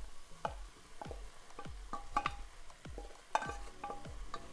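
A utensil stirring and tossing fried rice in a hot pan, with even strokes a little under twice a second and short clinks on the pan, over a light sizzle.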